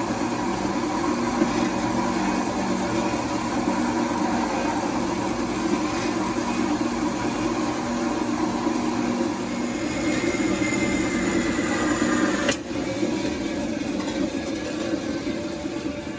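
A metal-cutting power saw runs steadily as it cuts through half-inch scrap metal plate. About three-quarters of the way through there is a sharp snap, after which the sound drops a little.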